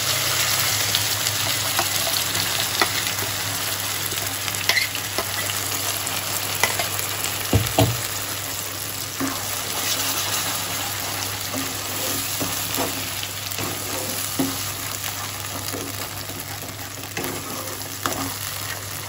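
A ground paste sizzling as it fries in hot oil and butter in a nonstick wok, stirred with a nylon spatula that scrapes and knocks against the pan now and then. The sizzle eases a little as the paste fries.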